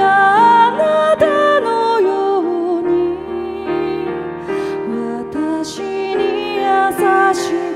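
A woman singing a slow, tender ballad live, with piano accompaniment; she holds long notes that glide between pitches.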